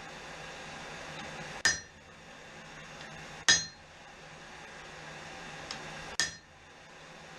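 Three spaced hammer blows on hot steel at the anvil, each a sharp metallic strike with a short ring, over a steady rushing background noise.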